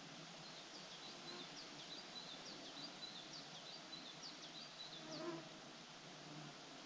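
Faint buzzing of flying insects close by, a steady low hum. Over it run quick, high repeated chirps through the first five seconds, and there is a single short knock or splash about five seconds in.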